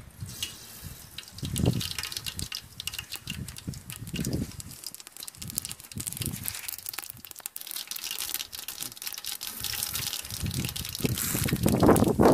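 Water gushing and splashing, with irregular clicks and knocks throughout and a louder swell near the end.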